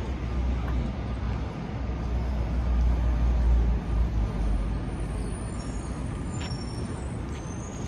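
City road traffic: a steady rumble of passing vehicles, heaviest in the first half, with faint high-pitched squeaks about two-thirds through.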